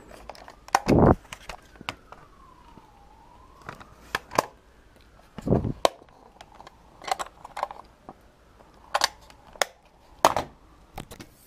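Scattered plastic clicks, knocks and thumps of old electronics such as a portable CD player being handled and shifted about while rummaging through discarded gear. A faint whine falls and then rises in pitch in the first few seconds.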